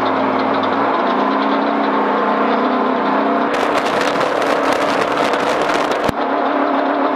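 Vehicle engine running steadily while driving off-road. For about two and a half seconds in the middle, a crackly rattling noise rides over it and ends in a sharp click.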